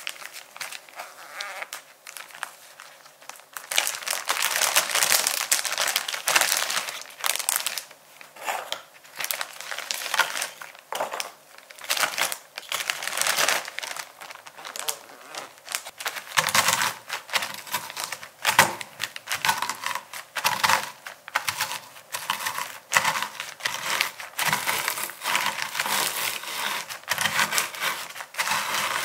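A plastic Ziploc bag crinkling as it is opened and handled and cream-free Oreo cookies are dropped into it. Later, the cookies crunch and the plastic rustles under repeated strokes of a wooden rolling pin as they are crushed into crumbs inside the sealed bag.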